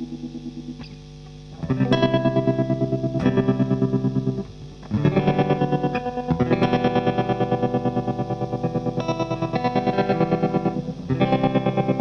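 Electric guitar playing slow chords through a Tonepad Pulsar, a DIY clone of the 1970s Electro-Harmonix Pulsar tremolo. Each chord rings with its volume pulsing about four times a second, and new chords are struck about a second and a half in, near five seconds, near six and a half, and near eleven.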